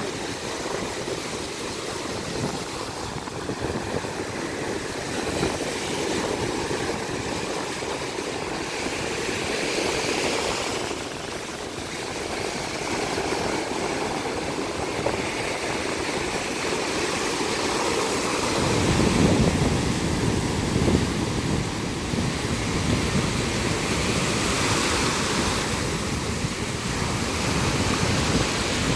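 Small ocean waves breaking and washing up over a sandy shore, a steady wash that swells as each wave comes in. A low rumble joins in about two-thirds of the way through.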